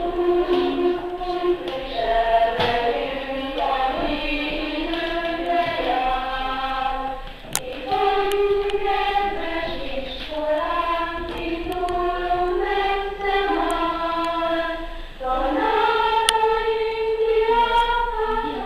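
A group of voices singing a slow melody together as a choir, each note held before stepping to the next.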